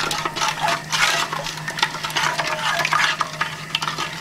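A spoon stirring sugar syrup in a pot, scraping over the grains of undissolved sugar on the bottom in an irregular run of strokes; the grains can still be heard, so the sugar is not yet fully dissolved. A steady low hum runs underneath.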